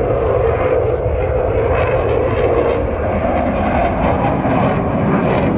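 Jet engine noise from a Eurofighter Typhoon fighter flying a display overhead: a loud, steady rushing rumble.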